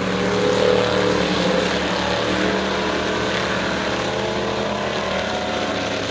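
Several Renegade-class dirt-track race cars running hard in a pack on a clay oval, their engines making a steady, loud drone that swells about a second in as the cars pass close and then eases as they pull away.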